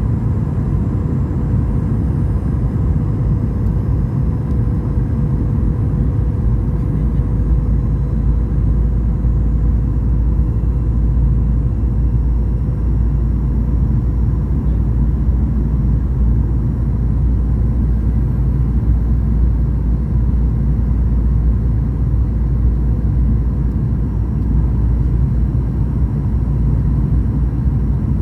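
Boeing 737 cabin noise: a steady, loud rumble of the engines and airflow, with a thin steady whine above it.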